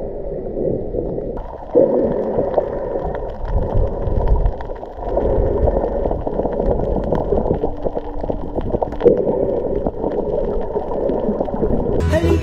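Muffled underwater gurgling and bubbling of water, recorded with the camera submerged while snorkeling. Music comes in near the end.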